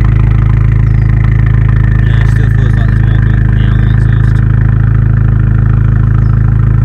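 Abarth 595 Competizione's turbocharged 1.4-litre four-cylinder idling steadily, heard close at its Record Monza quad tailpipes, with the exhaust valve held closed by its refitted spring. The sound starts abruptly.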